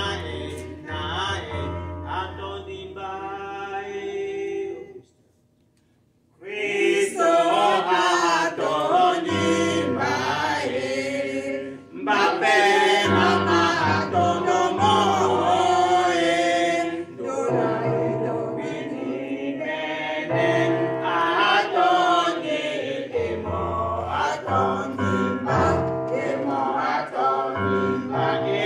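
Mixed church choir of men and women singing a hymn together. The singing breaks off about five seconds in for a second or two, then resumes louder.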